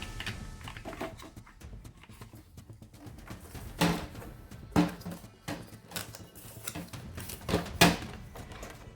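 A few sharp clicks and knocks, like hard objects being handled: the loudest come about four seconds in, near five seconds, and a close pair near eight seconds, with fainter ticks between.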